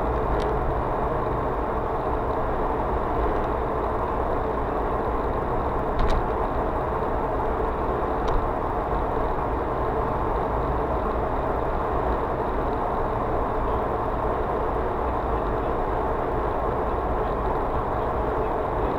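A car driving at steady speed on asphalt, heard from inside the cabin: a continuous even rumble of tyre and engine noise, with two light knocks about six and eight seconds in.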